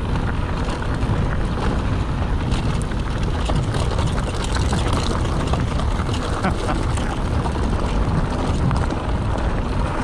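Wind rumble on a GoPro action camera's microphone while a mountain bike is ridden, with many small rattles and knocks from the bike over the trail.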